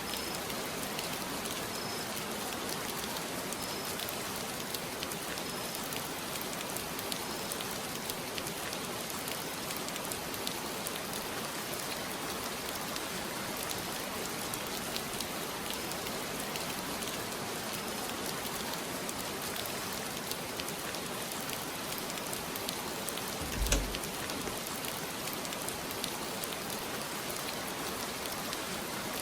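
Steady rain falling, an even hiss dotted with fine drop ticks, with a single low thump about three-quarters of the way through.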